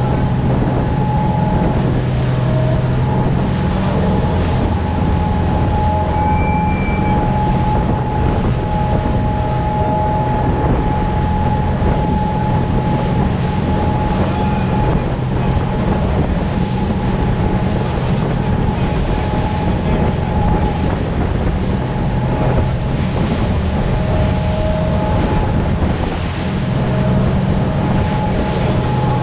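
Motorboat engine running at speed, a steady drone with a high whine, over the rushing hiss of the wake and spray and wind buffeting the microphone.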